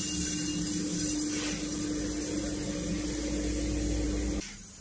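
Electric pottery wheel's motor running with a steady hum and hiss, cutting off abruptly near the end.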